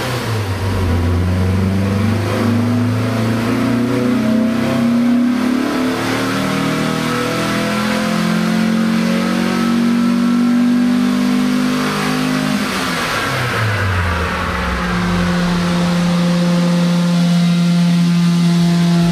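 Air-cooled VW Beetle flat-four engine doing a pull on a chassis dyno. The revs climb steadily for about twelve seconds and fall away, then the engine holds a steady speed until the sound cuts off suddenly.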